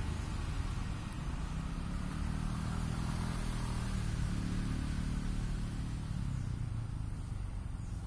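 A distant motor vehicle's engine hum, swelling in the middle and fading out again as it passes.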